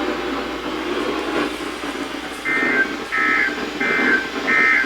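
Electronic alert beeping: a row of evenly spaced, half-second tone pulses, about one and a half a second, starting about halfway in over a steady radio hiss.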